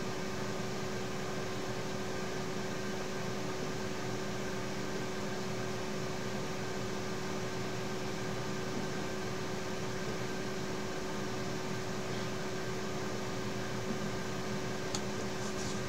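Steady fan hum and hiss with a constant low tone running under it, from machinery running in a small room. A couple of faint clicks near the end.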